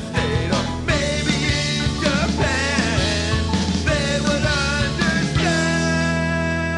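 Rock band playing with a lead singer over guitars and drums. Late in the stretch the singer holds one long note over the band.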